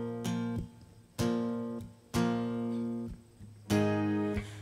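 Acoustic guitar playing four strummed chords about a second apart, each ringing out and fading before the next, with no voice.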